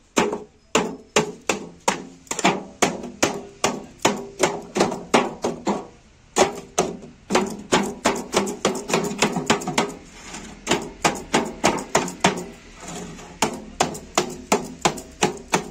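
Hammer beating folded sheet tin down inside an empty metal tin: a run of sharp metallic blows, about two a second, each with a short ring. The blows break off briefly twice.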